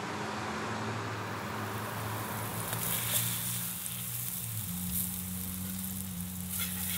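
T-bone steaks sizzling steadily on an electric griddle, with a low steady hum underneath and a few faint ticks as a spatula works the meat.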